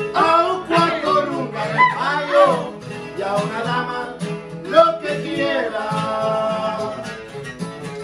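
Takamine TT-400 acoustic guitars playing the instrumental break of a ranchera: a requinto picks the melody over a rhythm guitar.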